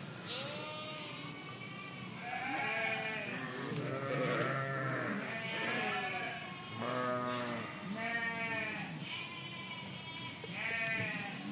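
A flock of sheep bleating, several animals calling one over another, each bleat about a second long and wavering in pitch.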